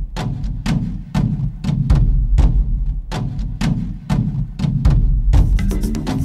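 Background music with a steady drum beat, about two strikes a second over a deep bass. About five seconds in, a busier, faster beat comes in.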